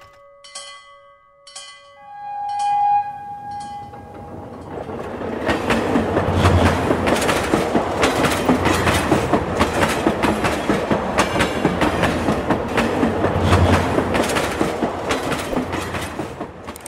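Toy railroad crossing signal ringing in short electronic pulses, with a held horn note about two seconds in. Then the toy train set runs with a dense, continuous clickety-clack rattle.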